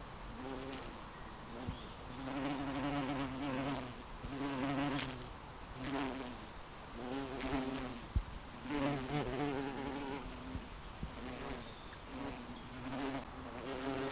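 Bees buzzing close by, the drone swelling and fading as they fly past again and again. A light knock sounds about eight seconds in.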